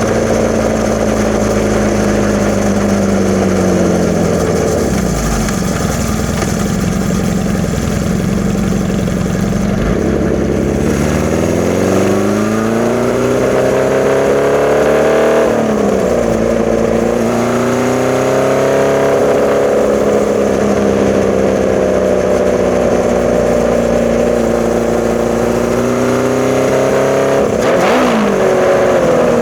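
1981 Honda CB650's air-cooled inline-four, breathing through Mikuni VM34 carbs and a Hindle 4-2-1 exhaust, pulling under way. Engine pitch falls off about four seconds in, climbs steadily from about ten seconds, and drops briefly twice, around 15 and 28 seconds, as at gear changes.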